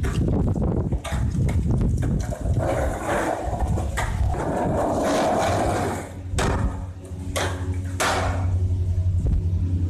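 Skateboard rolling over concrete paving tiles, its wheels making a rough rumble, broken by several sharp clacks of the board.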